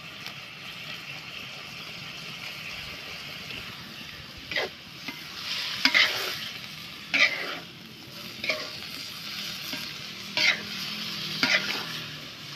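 Lotus stems and petals sizzling in a wok as a metal spatula stirs them, with sharp scrapes of the spatula against the pan, about seven of them, from about four seconds in.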